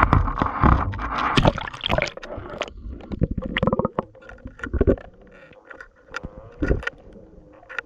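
Water sloshing and gurgling, with irregular knocks and scrapes against a camera in the water. The sound is loud and dense for about the first two seconds, then thins to scattered clicks and knocks.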